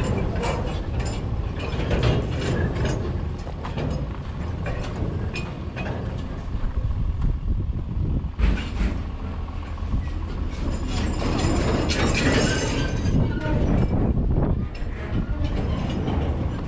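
Sugarcane-loading machinery and narrow-gauge railway wagons working: a steady low rumble with repeated metallic clanks and rattles, the loudest just past the middle and again a few seconds later.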